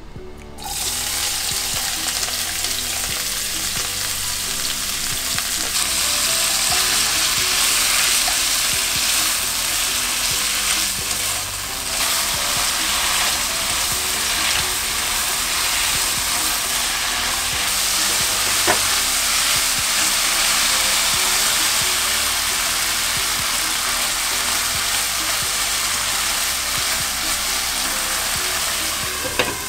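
Seasoned bracken fern stems sizzling in hot oil in a nonstick wok as they are stir-fried. The sizzle starts suddenly about half a second in, when the stems go into the pan, and stays steady from then on.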